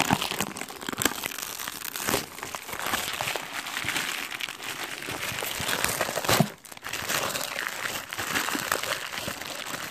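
Clear plastic wrapping crinkling and crackling as it is handled around a pack of boxed baseball holders. One sharper, louder crackle comes about six and a half seconds in.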